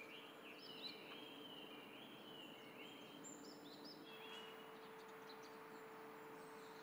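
Faint outdoor birdsong: many short, quick chirping notes, thinning out about four seconds in, over a faint steady hum.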